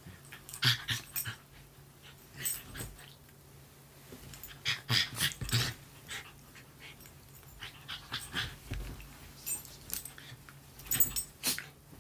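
Poodle-mix dogs at play, making short bursts of growling and huffing breaths in several clusters.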